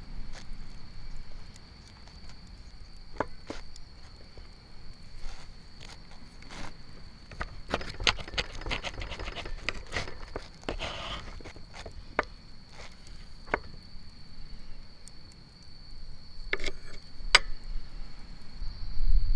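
Scattered sharp clicks and light knocks, thickest about eight to eleven seconds in with a brief hiss, over a steady high-pitched tone.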